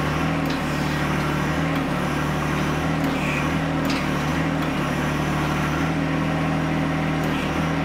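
John Deere 1025R compact tractor's three-cylinder diesel engine running steadily, with a few faint clicks.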